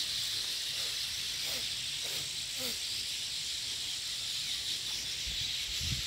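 A flock of sparrows chirping all at once in a dense, steady chorus with no single call standing out. A low rumble comes in near the end.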